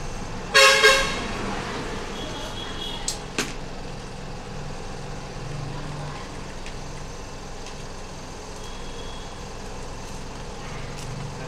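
A vehicle horn sounds once, briefly, about half a second in, over a steady background of traffic noise. Two sharp clicks follow about three seconds in.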